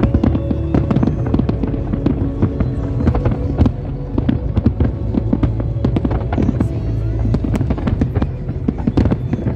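Fireworks display: a dense barrage of aerial shells bursting in rapid succession, a continuous crackle of many overlapping reports over a steady low rumble.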